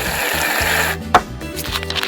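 Background music with a steady bass line, overlaid by a hiss lasting about a second and a single sharp click shortly after.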